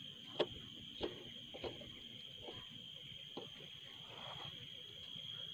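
Insects chirring faintly and steadily in one high, unbroken tone, with a few light clicks and knocks from hands handling fishing tackle on a wooden boat, the sharpest about half a second in.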